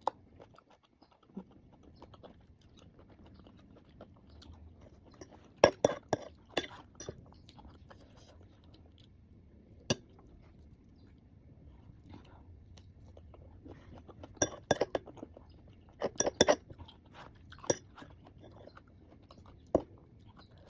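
Close-up chewing and crunching of sour mango with shrimp paste, with scattered sharp crunches and occasional clinks of a spoon on a dish.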